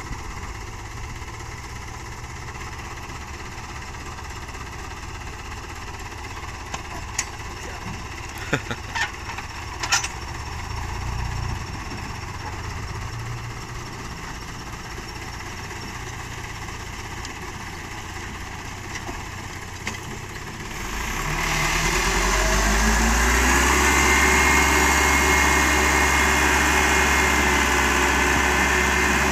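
Light diesel dump truck engine idling, with a few sharp clicks around the middle. About two-thirds of the way through the engine revs up and holds at high revs, driving the hydraulic hoist that raises the loaded bed to tip out the soil.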